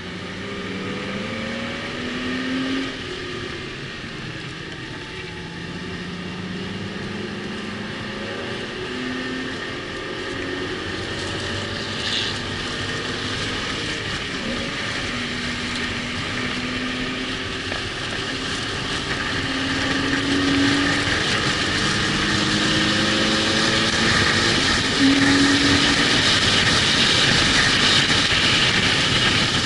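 Car engine driven hard on a race track, revving up and falling back again and again through gear changes and braking, with wind and road noise growing louder near the end.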